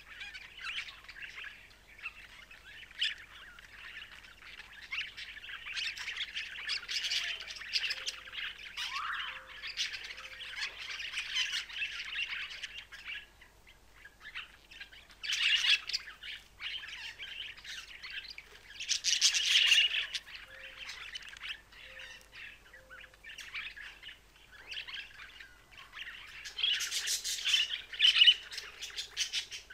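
Budgerigars warbling and chattering in a continuous stream of chirps, with louder bursts of squawking about halfway through and again near the end.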